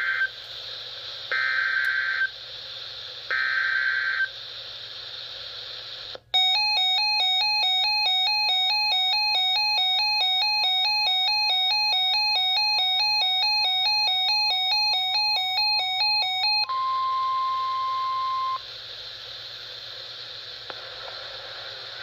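NOAA Weather Radio Specific Area Message Encoding (SAME) header: three one-second bursts of screechy digital data tones. About six seconds in, the receiver's alert alarm sets off, a loud, rapid electronic beeping that repeats evenly for about ten seconds. It stops and the steady 1050 Hz warning tone sounds alone for about two seconds before cutting off, leaving radio static hiss.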